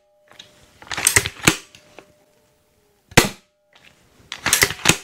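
Steambow Stinger II repeating crossbow with an all-aluminium CNC-milled stock and metal magazine, shooting off 75 lb limbs. The fore-end is cycled with a quick series of clacks about a second in to cock and load a bolt, a single sharp shot cracks just past three seconds, and a second round of cocking clacks comes near the end. A faint metallic ringing hangs on between the strokes.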